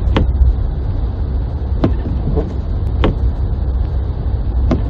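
Car driving, heard from inside the cabin: a steady low rumble of engine and road, with a short sharp click about every second and a half.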